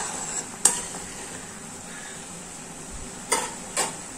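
Thick sugar syrup boiling hard in a metal kadai, a steady bubbling hiss, while a metal spatula stirs and knocks against the pan: one sharp clink a little after the start and two more near the end.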